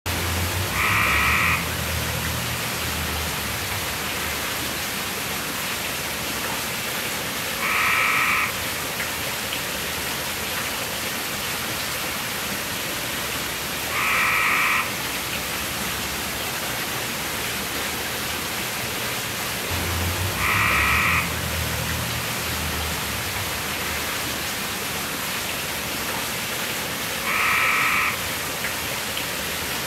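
Fountain water pouring over a small stone waterfall in a steady rush, with a frog croaking five times: one short call every six or seven seconds, louder than the water.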